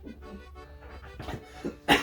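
Background music with steady held notes. Several short, sharp noisy bursts from a person, like coughs, come in over it in the second half; the last one, near the end, is the loudest.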